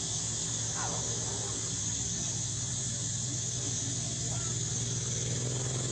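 A steady high hiss over a steady low hum, with a few faint short squeaks falling in pitch, one about a second in and another a little past the middle.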